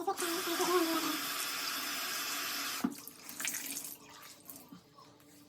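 Bathroom sink tap running, then shut off sharply a little under three seconds in, followed by faint handling clicks.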